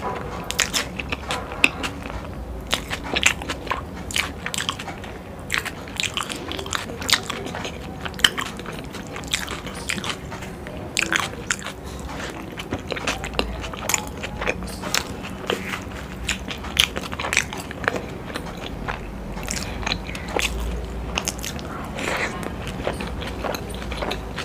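A person eating close to the microphone: biting and chewing raw cabbage leaves and chilli momos, with crisp crunches and wet mouth clicks throughout.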